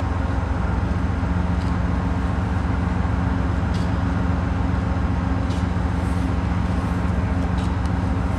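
Diesel locomotive of a standing passenger train idling: a steady low engine hum that holds the same pitch throughout, with a few faint ticks.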